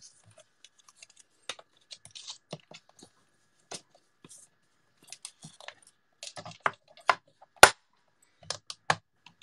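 Hands handling card stock and pieces on a Stamparatus stamp-positioning plate: scattered light taps, clicks and paper rustles, with one sharp click about three-quarters of the way through.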